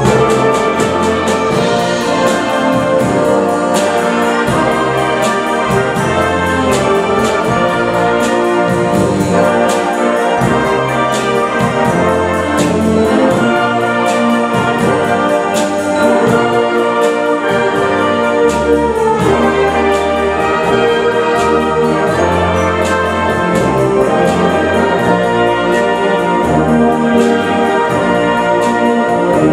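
Full concert wind band playing a pop-style arrangement of 1960s songs: brass and woodwinds on sustained chords and melody over a moving bass line, with a steady drum beat.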